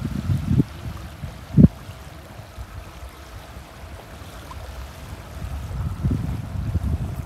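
Wind buffeting the phone's microphone in gusts, a low rumble that eases in the middle and picks up again near the end, with one sharp handling knock about one and a half seconds in.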